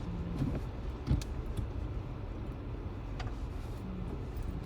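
Steady low road and engine rumble inside a moving car's cabin, with a few light clicks, the sharpest about a second in.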